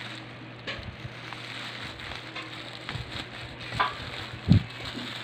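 Plastic packaging and bubble wrap crinkling and rustling as hands handle and pull at it, with a couple of soft thumps near the end.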